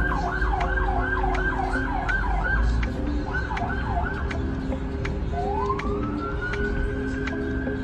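Emergency-vehicle siren sounding a fast yelp, quick falling sweeps about three or four a second with a short break. About two thirds of the way in it switches to a slow wail that rises and holds its pitch. Under it runs a steady low rumble.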